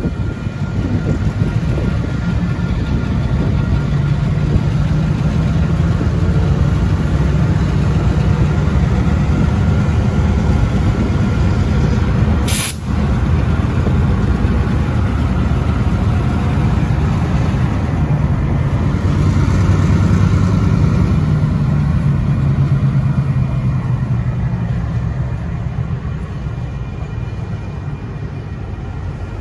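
Two EMD SW1500 switcher locomotives, each with a 12-cylinder EMD 645 diesel engine, running under load as they pull tank cars over a road crossing. The engine note swells to its loudest about two-thirds of the way through and then eases off, with the crossing's electronic warning bells sounding and a sharp click near the middle.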